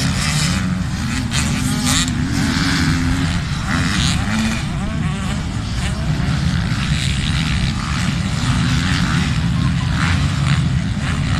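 Motocross motorcycles running on a dirt track, engines revving and changing pitch as the bikes go past.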